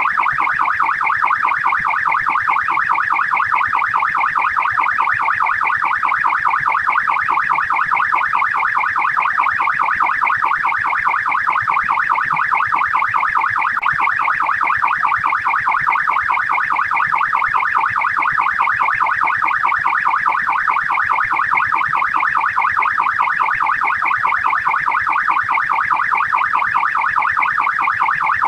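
Australian police car siren in its fast yelp mode: a rapid, evenly repeating up-and-down wail, several sweeps a second, sounding continuously.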